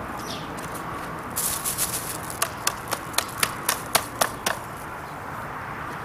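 Brief rustling of a plastic bag and dry nesting grass, then about nine sharp knocks, roughly four a second, as the wooden wren house is tapped to shake old nesting material loose into the bag.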